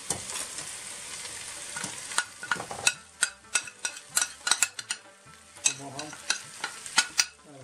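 Chicken and onions sizzling in oil in a stainless-steel pot, then a spoon tapping and scraping a bowl as ground spices are knocked into the pot: a run of sharp clicks starting about two seconds in, two or three a second.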